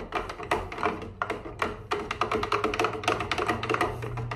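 Background music with a quick percussive beat and held notes.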